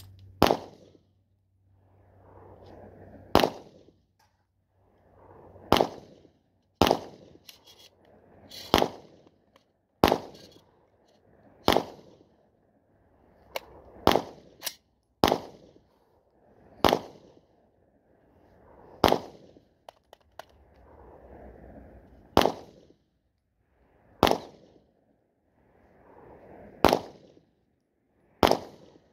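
Rifle shots from a semi-automatic 6.5 Creedmoor rifle fired from the prone position: about fifteen single shots, each a sharp crack, spaced one to three seconds apart, with two fired in quick succession about halfway through.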